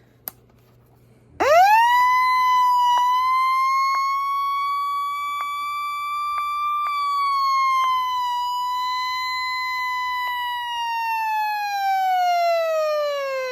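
A siren starts about a second and a half in, rises quickly to a steady high wail, and holds it for several seconds. It then slowly falls in pitch over the last few seconds, winding down. A few faint clicks sound over it.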